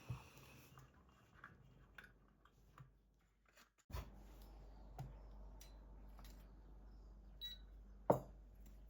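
Scattered light clicks and knocks, a few per second at most, with a louder knock about eight seconds in.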